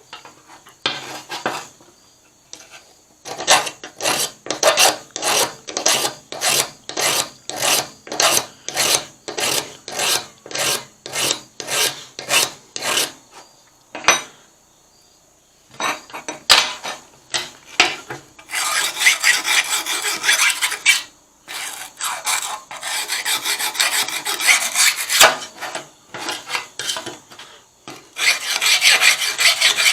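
Small triangular file scraping along the blade edge of cheap dollar-store kitchen shears to sharpen them. It starts as even strokes about two a second, then after a brief pause becomes faster, near-continuous filing.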